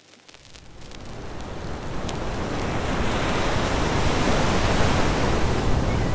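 Ocean surf breaking and washing in, a steady rushing noise that fades up over the first two seconds.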